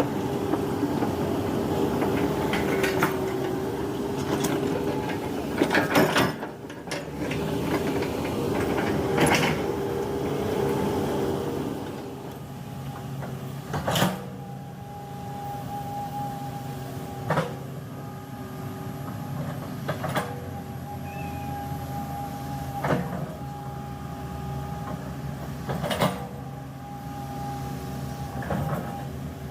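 Komatsu PC200-8 excavator's diesel engine running, louder for about the first twelve seconds and then settling lower, with a sharp knock every few seconds.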